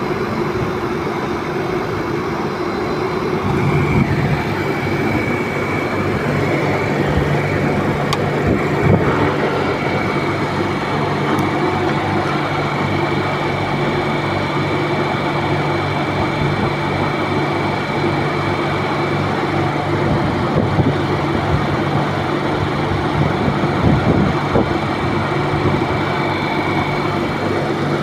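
Refrigeration unit of a refrigerated shipping container running with a steady mechanical hum. About four seconds in, a stronger low hum and a thin high whine join in and hold steady.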